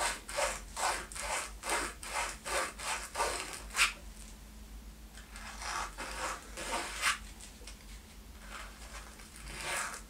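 Sandpaper rubbed back and forth by hand against the finish inside a guitar body's jack routing, clearing finish so the output jack will fit. Short scraping strokes, about two or three a second for the first four seconds, then slower and more spread out.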